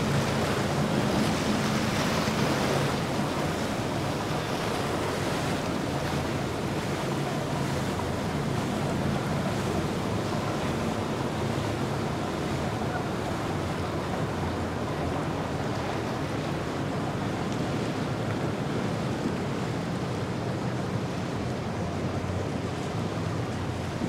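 Wind buffeting the microphone over rushing water from passing boats, with boat engines running; a low engine hum is clearest in the first few seconds.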